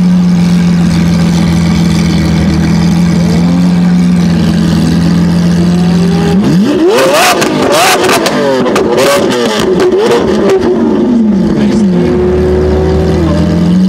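Lamborghini Aventador's 6.5-litre V12 idling, then blipped several times, rising and falling quickly in pitch with sharp pops from the exhaust, before settling back to idle.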